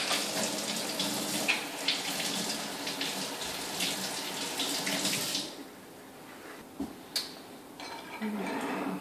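Kitchen faucet running into the sink, cutting off about five and a half seconds in, followed by a couple of light clicks.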